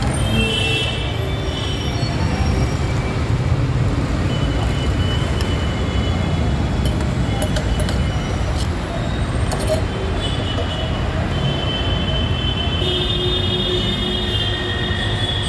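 Steady street traffic noise: a continuous low rumble with faint high tones coming and going and a few light clicks in the middle.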